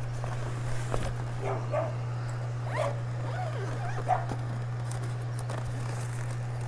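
A dog barking and yelping several times in short calls, over a steady low hum.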